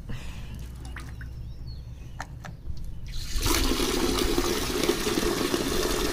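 Water from a wall tap pouring into a metal bucket, starting suddenly about three and a half seconds in and running steadily as the bucket fills. A few faint clicks come before it.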